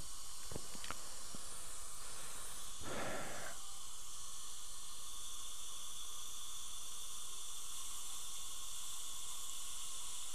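Dental suction tip running with a steady hiss, with a brief louder rush of air and fluid about three seconds in.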